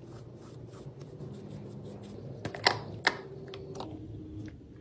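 Small clicks and taps from a gold metal makeup compact being handled and worked open, with two sharp clicks near the middle, the second followed by a brief ringing tone.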